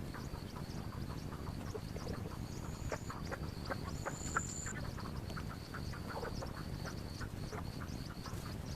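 Outdoor animal sounds: many short croak-like calls over a steady high-pitched insect tone and a low hum, with two brief higher whistles about three and four seconds in.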